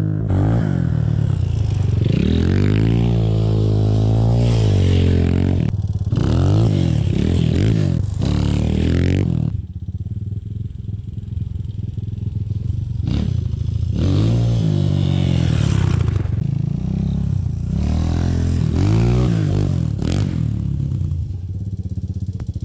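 Engine revved in repeated throttle blips, its pitch rising and falling, then dropping back to a lower idle for a few seconds about ten seconds in before the revving starts again.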